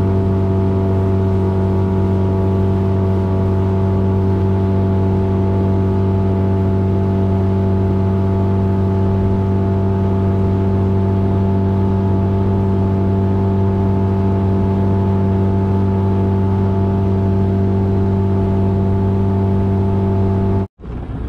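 Boat motor running steadily at constant speed under way, its drone holding one even pitch throughout; it cuts off abruptly near the end.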